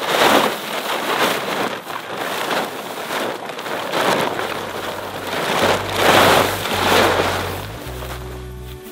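A large plastic tarpaulin being unfolded and shaken out, rustling and crackling in repeated swells as it is handled and flapped. Soft music comes in about halfway through.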